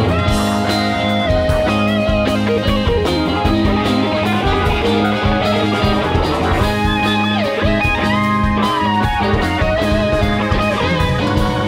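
Live rock band playing, with an electric guitar taking a lead solo of sliding, bent notes over a steady bass line and drum kit.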